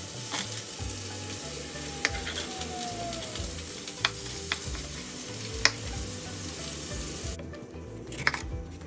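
A large kitchen knife strikes a wooden cutting board about five times, a second or two apart, in single cuts through onion and parsley and then into a tomato. A steady hiss underneath stops suddenly about seven seconds in, and soft background music plays beneath it all.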